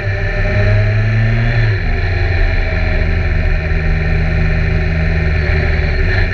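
BMW K1300R's inline-four engine running under way. About two seconds in its note drops a little as the revs fall, then holds steady.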